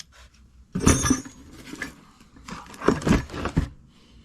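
Metal wrenches clinking and clattering as they are handled and set down, in two short bursts: one about a second in and another near the middle.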